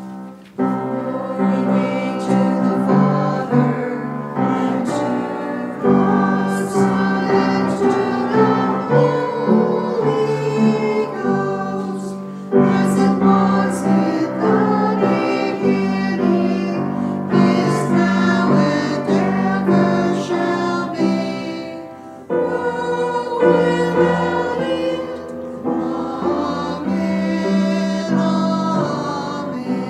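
Church congregation singing a short sung response in unison, with keyboard accompaniment holding sustained chords, in phrases lasting several seconds.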